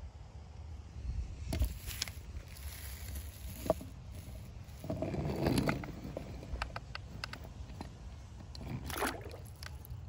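Hot Wheels Race Ace toy monster truck being handled and pushed along a wooden ramp: a few knocks and clicks, and its tires scuffing and scraping on the boards. Near the end there is a short splash as it drops into a pool of water.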